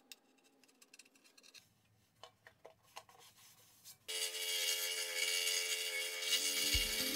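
Faint rubbing and small clicks of a utility knife trimming packing tape stuck over a scroll saw's plastic throat-plate insert. About four seconds in, background music starts suddenly and takes over, with a low beat coming in near the end.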